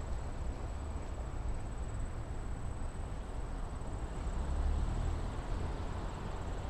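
Outdoor street ambience: a low, uneven rumble under a soft hiss, with a faint, steady, high-pitched thin tone above it.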